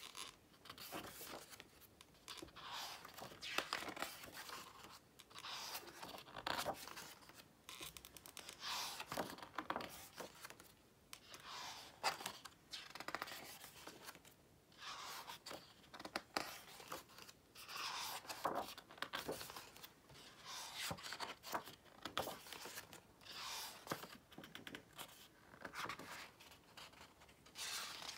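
Glossy pages of a hardcover photo book being turned one after another, each turn a papery swish, coming every two to three seconds.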